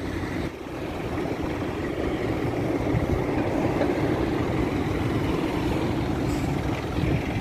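Steady engine and road noise of a vehicle being driven, heard from inside the cabin as a low, even drone.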